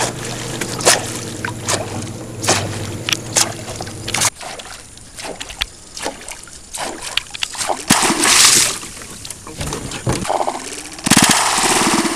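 Water splashing from blue peacock bass striking surface lures: a series of sharp pops, a loud splash about 8 seconds in, and a heavy churning splash near the end. A low steady hum underlies the first four seconds.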